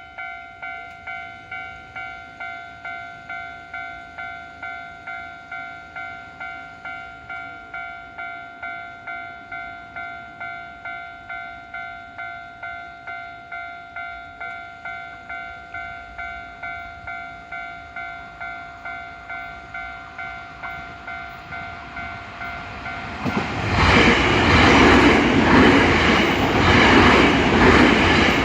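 Japanese level-crossing bell ringing steadily, about two strikes a second, warning of an approaching train. A little over 23 seconds in, a Nankai Main Line train arrives and passes over the crossing with a loud rumble and rhythmic wheel clatter that drowns out the bell.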